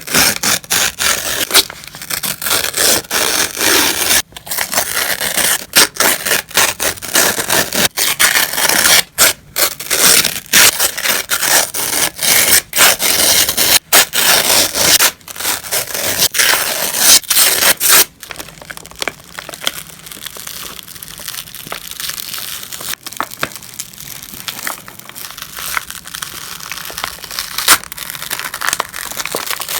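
Paper being ripped by hand, crisp tearing and crackling in loud uneven strokes, turning softer and sparser about two-thirds of the way in.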